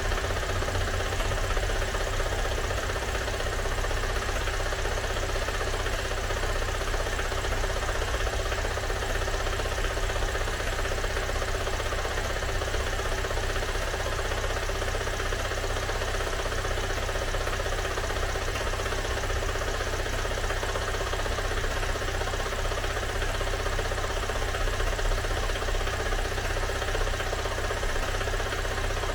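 Car engine idling steadily, with an even low pulsing throughout.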